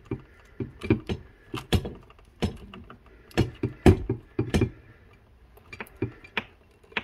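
Irregular small clicks and taps of wires being twisted together and a plastic wire nut screwed on inside a metal light-fixture backplate.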